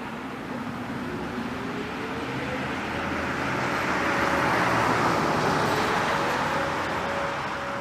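A road vehicle passes close by, its tyre and engine noise swelling to a peak about halfway through and then fading. Underneath, a Whelen WPS-4004 electronic warning siren's alert tone faintly rises in pitch and then settles on a steady tone.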